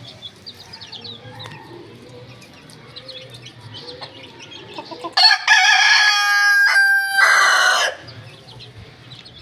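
A rooster crows once, loud, starting about five seconds in and lasting nearly three seconds, with a short break partway through.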